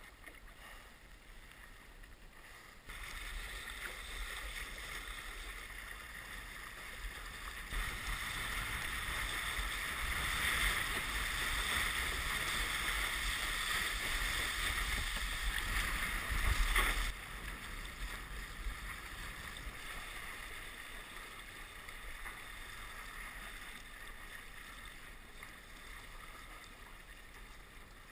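Water rushing and splashing against a windsurf board under sail, with wind buffeting the camera. The rush gets louder about three seconds in, peaks in the middle and drops off suddenly at about seventeen seconds.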